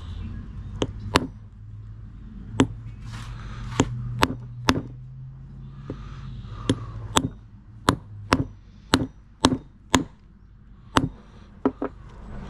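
Ball-peen hammer tapping a new seal into a motorcycle's aluminium rear-wheel hub, about sixteen light, sharp taps at an uneven pace that come closer together in the second half. The taps drive the seal in gently and evenly rather than hard, seating it until it is almost flush.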